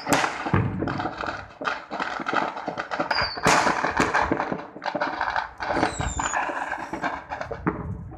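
Fireworks going off in quick succession: dense crackling pops and bangs, with a short high whistle about three seconds in and a falling whistle about six seconds in.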